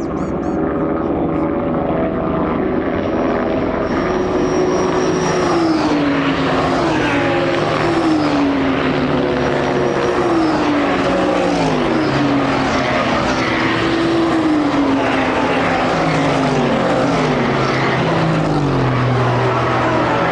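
Several racing cars running hard on the circuit, their engines blending into a continuous loud drone. The engine notes repeatedly drop in pitch in steps as the cars shift gears and pass.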